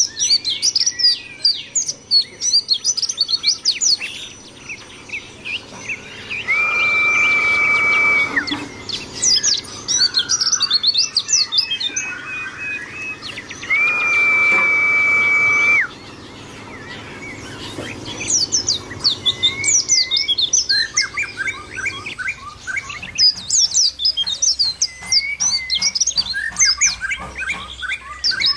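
Pleci (white-eye) song: runs of fast, high, twittering chirps and trills, broken twice by a long, level whistle lasting about two seconds.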